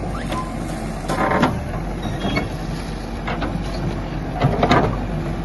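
Bulldozer's diesel engine running steadily, with two louder crashing bursts, about a second in and again near the end.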